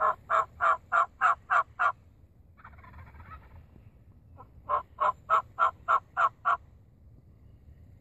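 Wild turkey calling: two runs of short, evenly spaced notes, seven and then eight, about three a second, with a soft scratchy sound in the pause between them.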